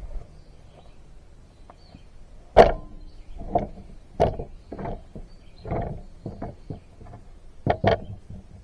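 About ten irregular knocks and thuds, the sharpest about two and a half seconds in and a quick pair near the end, over faint outdoor background.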